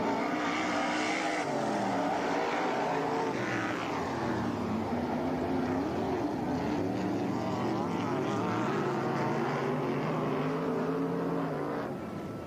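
Several winged sprint cars' V8 engines racing around a dirt oval, overlapping and rising and falling in pitch as the cars accelerate down the straights and lift for the turns.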